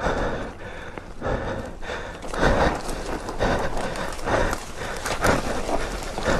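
Footsteps crunching and scrambling down a steep slope of loose dirt and dry brush, with twigs and branches snapping and scraping, about one step every half second.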